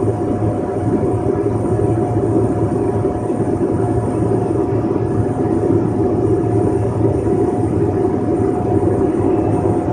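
Single-engine propeller plane's piston engine and propeller running steadily, heard from inside the cockpit.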